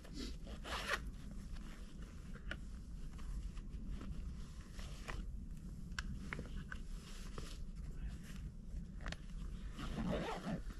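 A zipper pulled open about a second in, followed by scattered light clicks and rustling of gear being handled, with a further rustle near the end.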